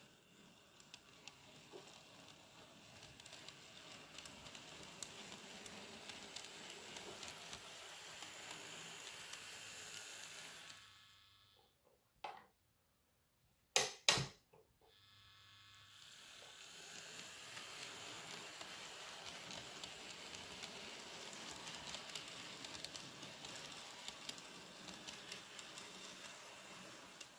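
N scale model commuter train (Atlas ALP-45DP locomotive with multilevel coaches) running on sectional track: a faint hissing rattle of the running train that builds up, falls away almost to nothing for a few seconds in the middle, where a couple of sharp clicks stand out, then builds again as the train comes round.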